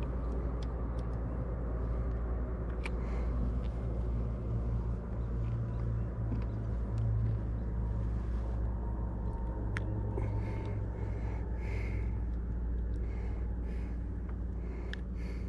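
A steady low rumble, with a few faint ticks and, in the second half, short faint high blips.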